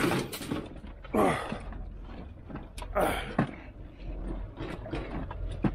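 Aluminium scrap profiles clattering and scraping as they are handled and set down, with a few sharp metallic knocks, one near the end; a low steady rumble runs underneath.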